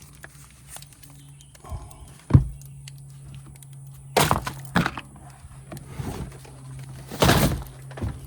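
Objects being handled and set down while boxes are unpacked: a sharp thud a little over two seconds in, then several short rustling, clattering bursts, over a faint steady low hum.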